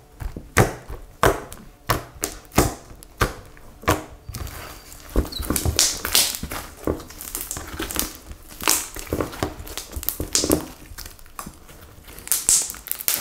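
Homemade slime slapped down on a table with the hand, a series of sharp smacks about three every two seconds. About four seconds in it gives way to the slime being squeezed and stretched in the hands, a run of wet squelches and crackling pops.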